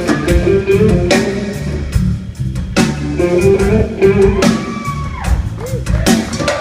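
Live rock band playing an instrumental passage: an electric lead guitar plays sustained notes with bends and slides over drums and bass guitar.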